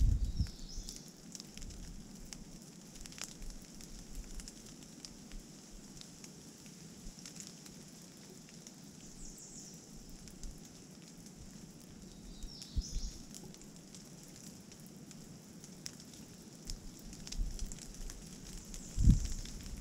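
Rain dripping from the trees in scattered drops, with gusts of wind buffeting the microphone, the strongest near the end. A few faint, short, high bird chirps come through the rain.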